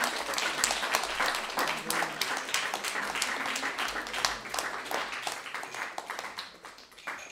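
Audience applauding, dense clapping that thins out and fades away near the end.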